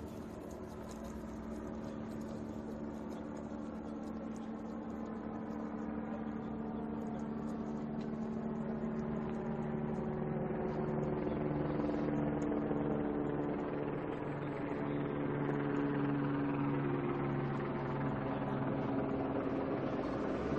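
A vehicle engine running with a steady hum, shifting somewhat in pitch about halfway through and growing gradually louder.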